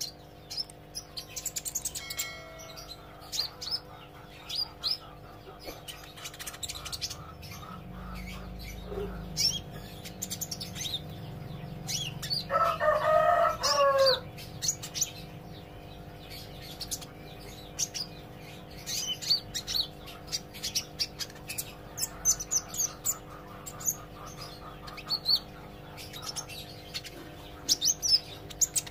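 A kolibri ijo sunbird chirping and twittering in rapid short high notes, practising its song, over a steady low hum. A louder, wavering call stands out about halfway through.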